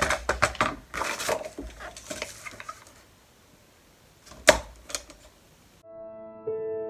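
Scrapbook paper being handled and lined up on a sliding paper trimmer: rustling and small clicks, then one sharp click about four and a half seconds in. Soft piano music comes in near the end.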